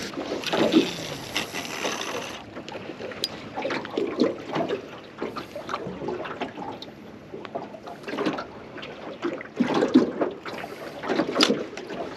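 Water lapping and splashing against a small fishing boat's hull, with irregular knocks and handling noises.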